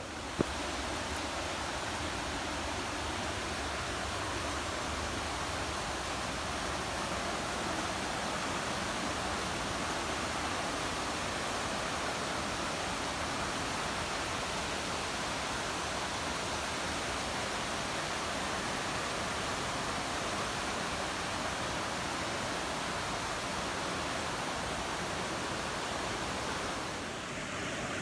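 Rushing water of a fast-flowing mountain stream near a waterfall, a steady even rush. A single short tap about half a second in.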